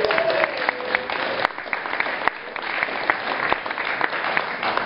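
Audience applauding, many hands clapping in a dense steady patter.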